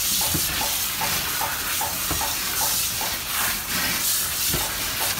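Dog-wash spray nozzle hissing steadily as it sprays shampoo and flea-dip water onto a dog and a stainless-steel tub, with a faint pulse about three times a second.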